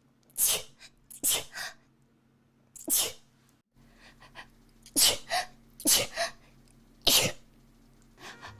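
A person sneezing about six times in quick succession, each sneeze a sharp burst, one to two seconds apart.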